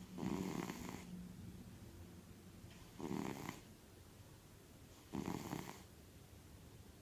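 A sleeping cat snoring heavily, with three deep snores on its breaths about two seconds apart.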